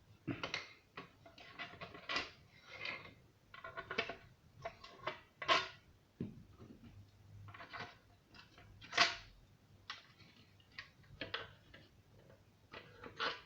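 Irregular clicks, light knocks and short scrapes of tools and metal parts being handled as an old radio set is taken apart, some knocks with a brief metallic ring.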